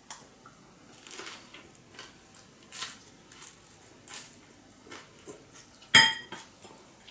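Soft mouth sounds of biting into and chewing a fresh spring roll of lettuce and herbs. About six seconds in, a sharp ringing clink as the small glass sauce bowl is set down on a plate.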